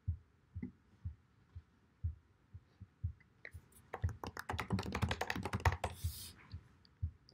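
Typing on a computer keyboard: a few scattered soft taps, then a quick run of keystrokes from about three and a half to six seconds in.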